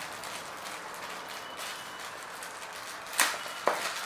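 Steady background hiss, then two sharp knocks about half a second apart near the end.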